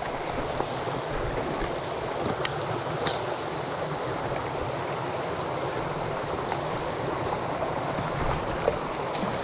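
Small, rocky mountain headwater creek flowing over stones and cobbles: a steady rush of running water.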